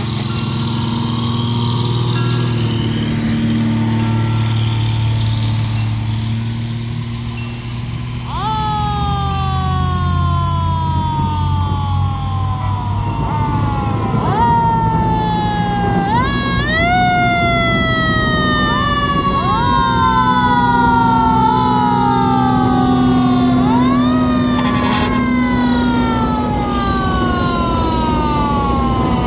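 Fire truck engines running, then from about eight seconds in, fire truck sirens wail over them. Each siren note rises quickly and then winds slowly down, over and over, with several sirens overlapping.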